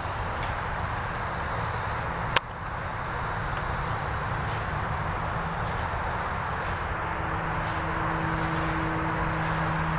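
A steady engine rumble with no speech, with a single sharp click about two and a half seconds in and a steady hum joining it about six and a half seconds in.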